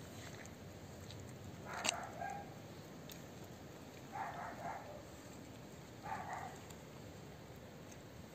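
A few short cat vocalizations, about two, four and six seconds in, from stray cats eating dry food side by side, over faint steady background noise; the first is led by a sharp click.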